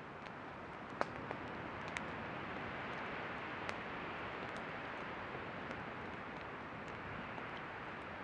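Campfire flaring up: a rushing hiss of flames that swells over the first few seconds, with scattered sharp pops and crackles from the burning wood.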